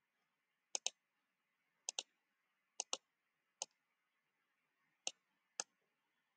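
Computer mouse clicking: about nine short, sharp clicks, several in quick pairs. These are the clicks of drawing line segments on an on-screen chart.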